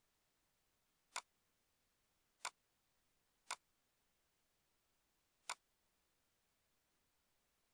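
Four sharp computer mouse clicks, unevenly spaced over about four seconds, against near silence.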